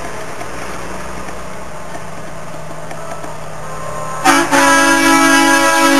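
A passing truck's diesel engine runs steadily close by. Then, a little over four seconds in, a truck air horn blasts loudly and holds a long, steady chord.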